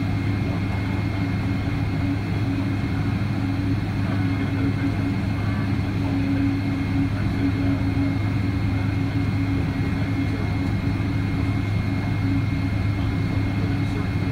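Cabin noise of a Boeing 777-200 taxiing: a steady low hum from the engines at taxi power, with a thin constant high whine above it.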